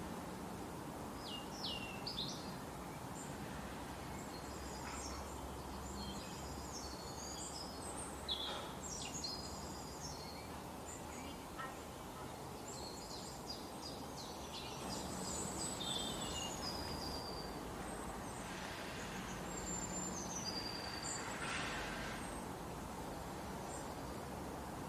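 Forest birds chirping and trilling in short high calls, many overlapping, over a steady background hiss of forest ambience.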